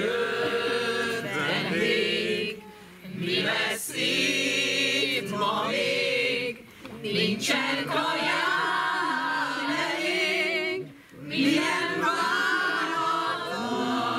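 A group of men and women singing a cappella in chorus, a musical-theatre song sung in long phrases with three short breaks for breath.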